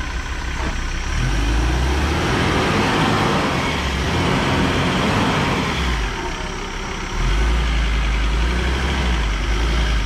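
A 4x4's engine working hard under load as it tries to climb, with a long surge of noise from spinning tyres that can't find grip in the mud. It eases briefly past the middle, then the engine pulls hard again.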